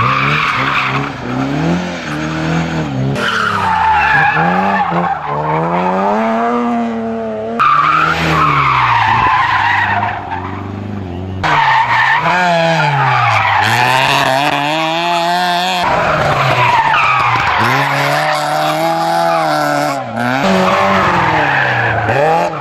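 Rally cars, among them a Ford Escort, an Opel Kadett and a Citroën Saxo, taken hard through a corner one after another. Engines rev high and drop again and again with gear changes and lifts, while tyres slide and scrabble on loose gravel.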